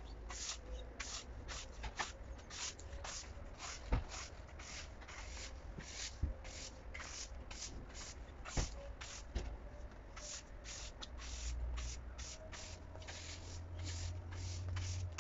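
A new yard broom sweeping a paved patio: a steady run of brisk bristle strokes, about two a second, with a couple of sharp knocks, the loudest about four seconds in.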